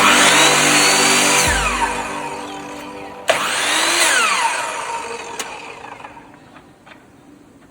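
Femi Jobline mitre saw's motor switched on twice. Each time the blade spins up with a rising whine, then is released and winds down with a falling whine.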